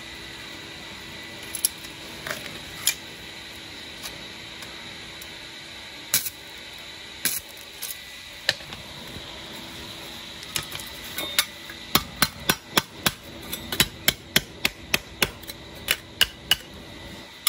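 Hand hammer striking thin 0.7 mm stainless steel sheet: a few scattered knocks, then a quick run of metallic blows, about three a second, in the last five seconds or so.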